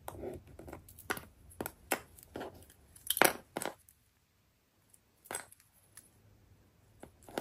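Hands handling a zipper, fabric tabs and small plastic sewing clips: a scattered series of light clicks and taps with soft rustles, the loudest a little after three seconds in.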